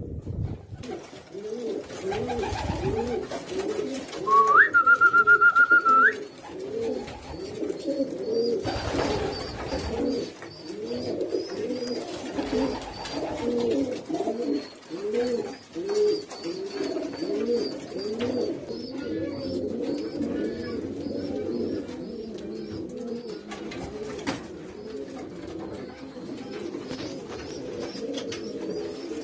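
Several racing pigeons cooing over and over in their loft, one coo after another. About four seconds in, a steady high tone sounds for about two seconds, stepping up in pitch at the end; it is the loudest sound.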